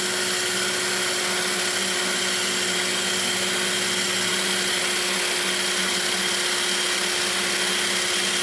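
Power-driven wire wheel running steadily against a stove's damaged porcelain enamel, stripping it down to bare metal. It makes a constant whine with a rasping hiss that does not change.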